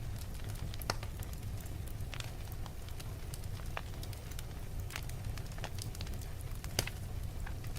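Wood fire burning in a fireplace: a steady low rumble with scattered sharp crackles and pops, two louder pops about a second in and near the end.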